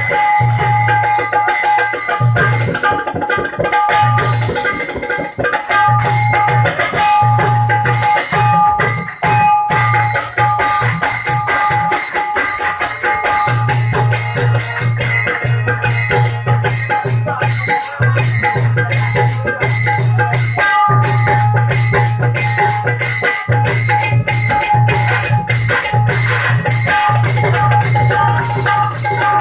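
Live Marathi folk music of a bharud–gavlan stage performance: a hand drum keeps the beat under other instruments playing held notes, loud and unbroken.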